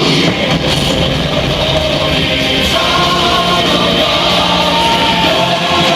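Loud rock backing music with guitar, with long held notes from about three seconds in.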